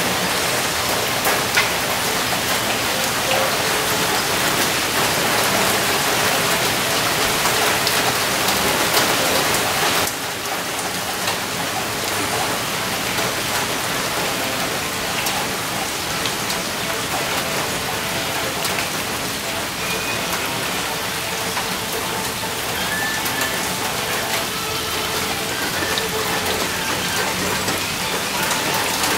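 Rain falling steadily, a dense even hiss of drops on hard surfaces; it steps slightly quieter about ten seconds in.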